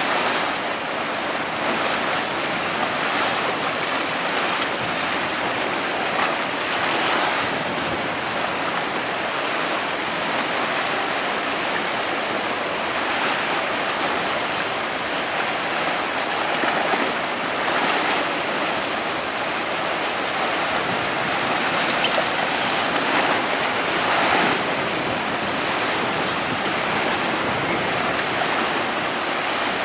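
Steady rushing wash of water with some wind, swelling and easing a little every few seconds.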